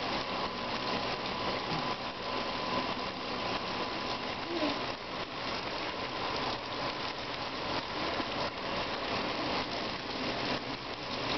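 Shower running steadily, its spray hissing and splashing into a bathtub.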